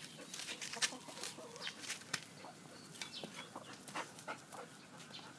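Laying hens dust-bathing in dry soil: soft, faint clucks in the first second amid scattered scratchy clicks and rustles of flicked dirt.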